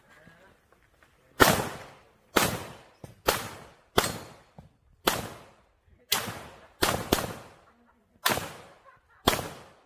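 About ten handgun shots at a steady pace of roughly one a second, with a quick pair about two thirds of the way through. Each shot trails off in a short echoing decay.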